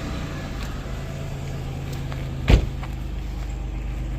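The 1998 Chevy Venture's 3.4-litre V6 idling steadily just after starting, an engine with a leaking head gasket. A single sharp thump about two and a half seconds in.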